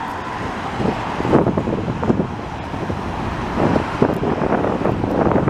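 Road traffic: cars driving past on a busy highway, a steady rush of tyre and engine noise with irregular surges, with some wind on the microphone.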